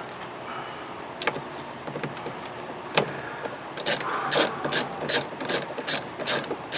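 Small hand ratchet clicking as it backs out a screw on a wiper motor cover: a few stray clicks at first, then a steady run of sharp clicks, about two or three a second, from a little past halfway.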